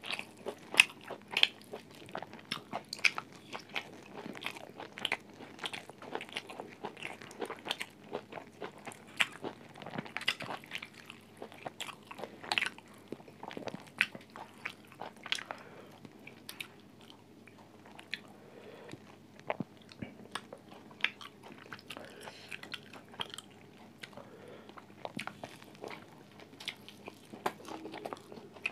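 A person eating close to the microphone: biting, crunching and chewing in many sharp, irregular crunches, which thin out about halfway through.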